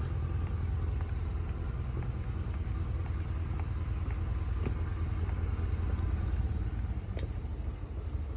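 Steady low motor rumble with a few faint footsteps on pavers.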